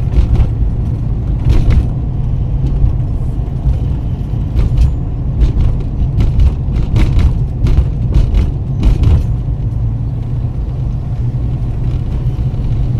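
Steady low road and engine rumble inside a moving car's cabin, with a scatter of short knocks and rattles, most of them in the middle stretch.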